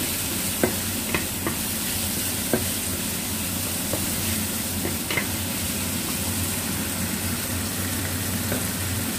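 Chicken pieces sizzling in a non-stick frying pan as they are stir-fried with a wooden spatula, with a few sharp taps and scrapes of the spatula against the pan in the first half.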